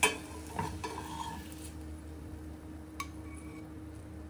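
Kitchenware clinking: a sharp clink right at the start, a few lighter ringing clinks about half a second to a second in, and one more tap about three seconds in, over a faint steady hum.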